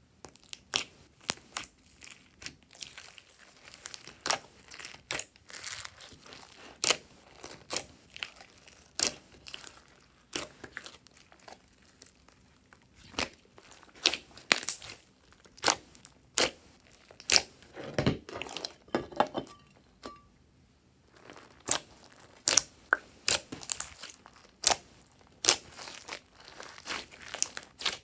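Hands squishing and pressing glossy slime with foam beads mixed in: an irregular run of sharp, sticky clicks and pops, with a brief pause about twenty seconds in.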